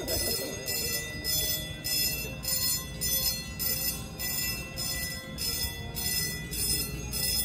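Railroad crossing warning bell ringing in an even rhythm, a little under two rings a second, as the crossing gates lower: the signal that a train is approaching.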